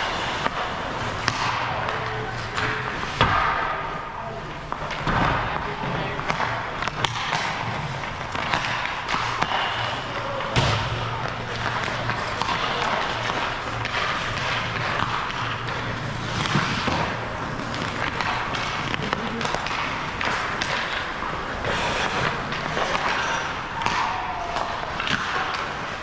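Hockey rink during stick time: skates scraping the ice and frequent sharp clacks and thuds of sticks, pucks and boards, under indistinct voices and music.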